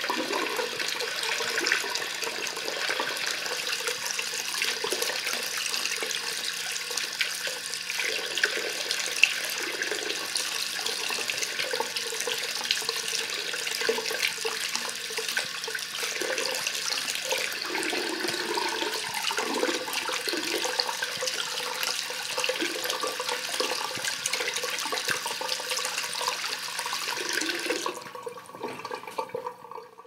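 Tap water running steadily into a basin, with draining water churning below the stream. Near the end the rushing stops and a fainter, lower sound trails off briefly before cutting out.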